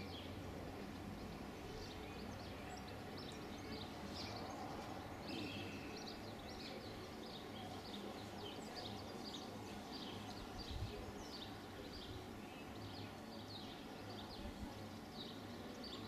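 Faint garden ambience: small birds chirping, many short high chirps in quick succession, over a low steady background hum.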